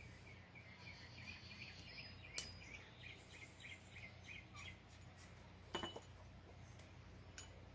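Very quiet: a few sharp metallic clicks as circlip pliers seat a steel circlip into the groove on a motorcycle transmission countershaft, over a low steady hum. Faint bird chirps, two or three a second, repeat in the background for the first half or so.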